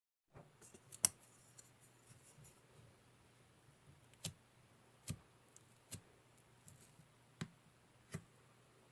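A handful of sharp, irregularly spaced clicks or taps, with small ticks in the first second and about six louder clicks over the rest, above a faint steady low hum.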